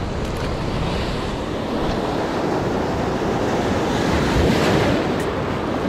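Ocean surf washing onto the beach in a steady rush, with wind buffeting the microphone.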